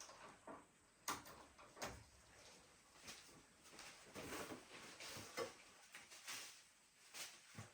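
Scattered light knocks and clicks with some rustling, the sharpest knock about a second in, like objects being handled and set down.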